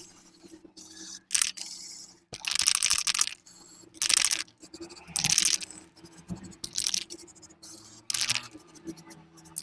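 Aerosol spray paint can sprayed in about six short hissing bursts, each around half a second long, touching up the fridge's inner plate over a fresh silver-brazed repair.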